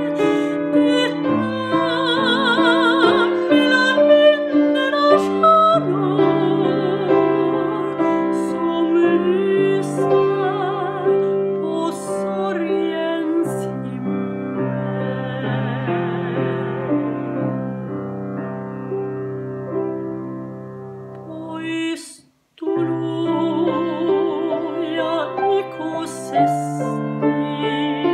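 Classically trained female singer singing a slow ballad with wide operatic vibrato, accompanied by piano. About 22 seconds in the sound fades and drops out for a moment, then voice and piano come back in.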